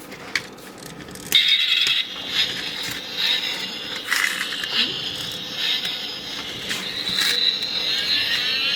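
Toy car's electronic sound effects playing through its tiny, tinny speaker, starting about a second in, with clicks and knocks of the metal car being handled and rising tones near the end.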